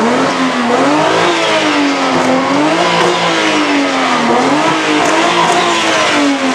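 Nissan Skyline R34 GT-R's twin-turbo straight-six engine revving, its pitch rising and falling smoothly three times as the car pulls out. The sound draws the reaction that it sounds crazy.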